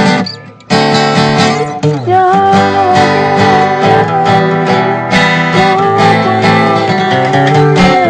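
Acoustic guitar strummed with a sung melody line drawn out in long held notes. The music drops away briefly about half a second in, then carries on.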